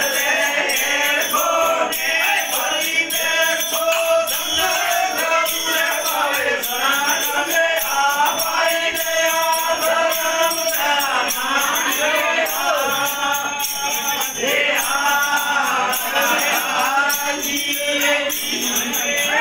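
Voices singing a Kutchi devotional bhajan in the aradhi vani style, with jingling percussion keeping a steady beat.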